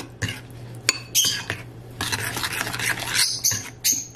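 Metal spoon stirring a wet garlic-and-seasoning paste in a ceramic bowl, scraping and clinking against the bowl in quick, irregular strokes that come thickest in the second half.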